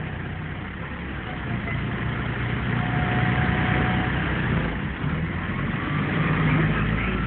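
Scania N113 bus's diesel engine, heard from inside the passenger saloon. It runs steadily, grows louder from about a second and a half in, dips briefly near five seconds, then rises again.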